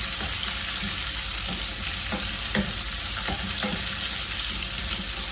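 Chopped onion and capsicum sizzling in hot oil in a nonstick frying pan, stirred with a wooden spoon that knocks against the pan several times.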